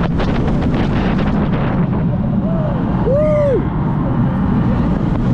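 Steel roller coaster train rolling along its track: a steady rumble and rapid clatter from the wheels, with wind buffeting the microphone. A brief rising-and-falling tone comes about three seconds in.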